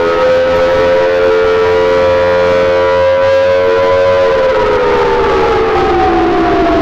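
Outdoor warning siren sounding at full pitch, several tones together held steady. About four seconds in, the siren begins to wind down, its pitch falling steadily.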